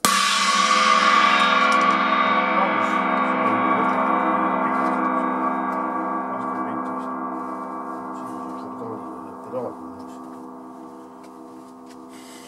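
A cymbal on the drum kit struck once hard and left to ring out, a long shimmering wash that fades slowly over about twelve seconds.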